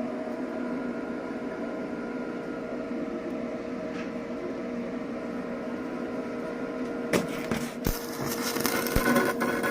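Electric welding machine humming steadily; about seven seconds in, the crackle of an electric welding arc begins.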